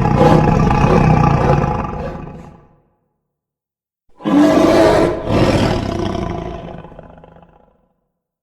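Designed creature roar made from a tiger's and a bear's roars mixed together, pitched deeper and given echo. One roar trails off, and after about a second of silence a second roar starts, catches briefly and fades away in a long tail.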